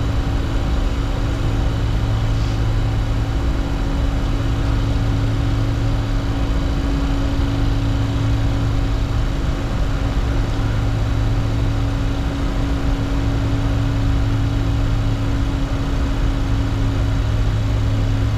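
Steady flight-deck noise of a Bombardier Challenger 604 business jet in the climb after take-off: the rush of airflow and engine noise with a constant low hum.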